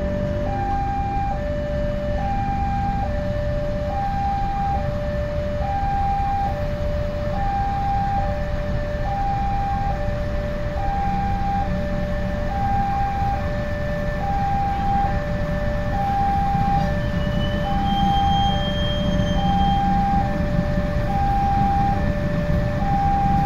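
Railway level-crossing alarm sounding a two-tone chime, a higher and a lower note alternating about once every 1.3 s. Beneath it is the low running of a CC206 diesel-electric locomotive, which grows louder near the end as it comes closer.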